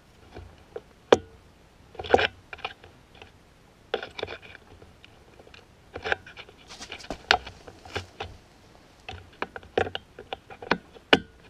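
Needle-nose pliers working the pin of a snowmobile choke lever into place: irregular sharp clicks and short scraping taps of the metal jaws against the lever and pin. The sharpest click comes about a second in.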